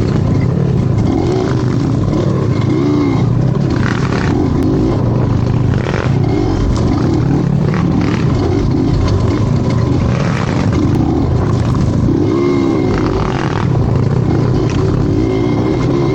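A vehicle engine running under load off-road, its revs rising and falling again and again.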